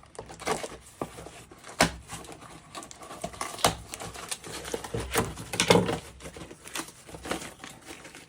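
Packaging of a valve spring compressor tool being handled and opened: crinkling and rustling with scattered sharp clicks and knocks, the loudest about two, four and six seconds in.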